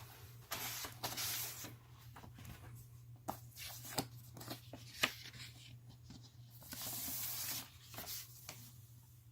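Vinyl LP and its paper sleeves being handled: two longer rustling, sliding stretches, with light clicks and taps between them.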